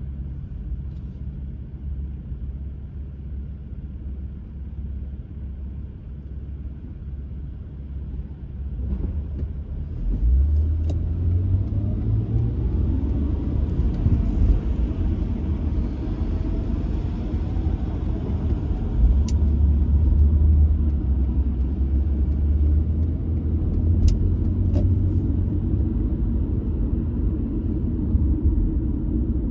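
Car engine and road noise heard inside the cabin: a steady low rumble at first, then louder from about ten seconds in as the car pulls away, with the engine note rising.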